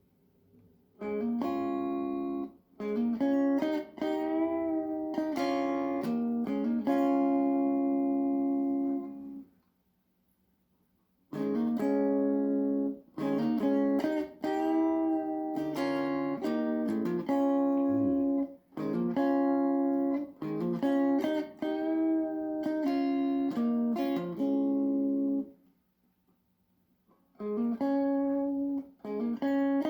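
Instrumental music: a melody of held, pitched notes in phrases, pausing twice for about two seconds.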